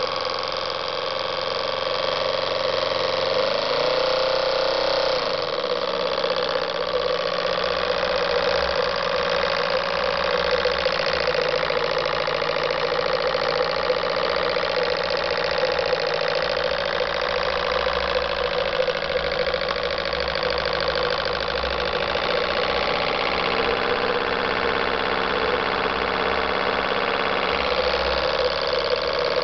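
Anton miniature steam engine running steadily on 20 psi boiler steam, a fast continuous mechanical clatter. The pitch briefly rises and falls about four seconds in.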